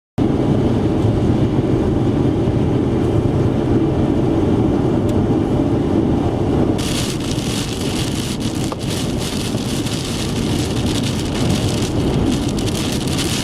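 Strong wind sounding as a steady heavy rumble. About seven seconds in, a hiss of rain comes in with scattered sharp ticks.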